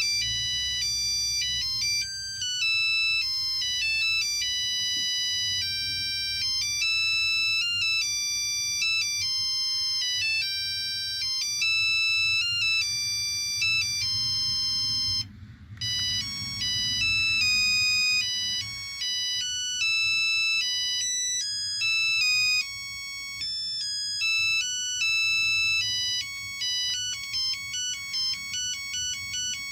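LG V111 mobile phone playing its built-in ringtones: electronic melodies of clean beeping tones, with a brief break about fifteen seconds in and short, rapid notes near the end.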